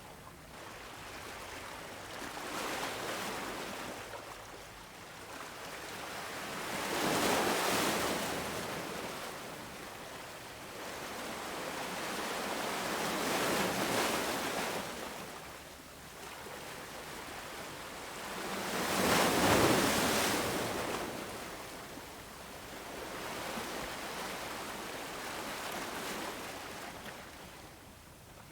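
Ocean waves breaking and washing up the shore, a surge of surf about every five or six seconds rising and ebbing away, the loudest about two-thirds of the way through.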